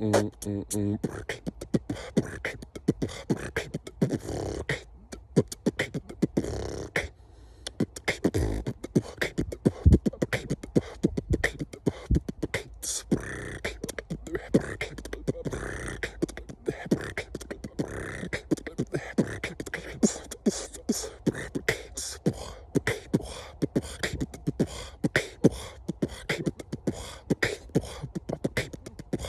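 Beatboxing: a performer's mouth and voice making a fast run of kick, snare and hi-hat sounds, with a few hummed or sung tones in between.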